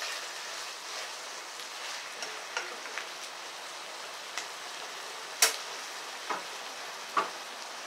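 Shrimp with corn sizzling steadily in a frying pan, stirred with a spatula at first, with a few sharp clicks scattered through, the loudest about five and a half seconds in. The dish is cooked through and ready to come off the heat.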